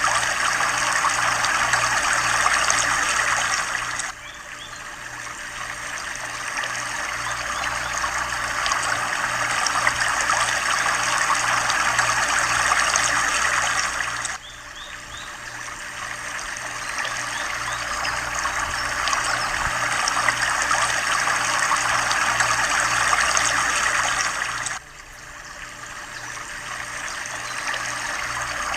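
Steady rush of trickling, running water, dropping off suddenly and swelling back up about every ten seconds, like a short recording played in a loop.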